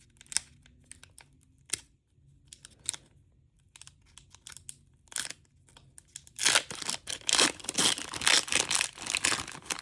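Foil booster-pack wrapper handled and torn open: a few scattered crinkles and rustles, then, about six seconds in, a dense run of crinkling and tearing.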